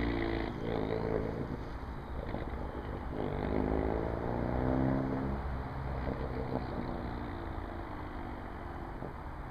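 Straight-piped 2013 Ford Focus ST, its resonator and muffler removed, accelerating away. The turbocharged 2.0-litre four-cylinder's exhaust note rises and drops several times and fades as the car gets farther off.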